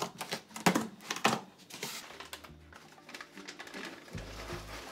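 Hands pressing and smoothing self-adhesive closed-cell foam into a half-cut PVC pipe, with a few sharp taps in the first second and a half, then quieter rubbing and handling.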